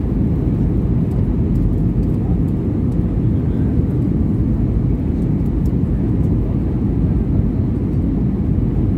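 Steady rumble of airflow and the CFM56 engines of an Airbus A320-214, heard inside the cabin from a window seat, deep and even throughout.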